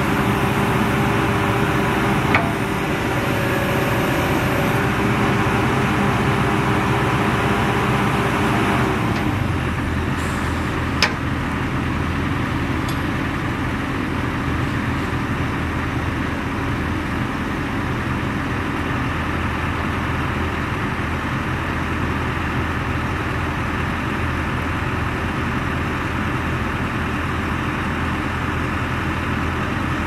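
Heavy diesel machinery engines running steadily, the sound changing abruptly about nine seconds in. Two short sharp knocks, one about two seconds in and one about eleven seconds in.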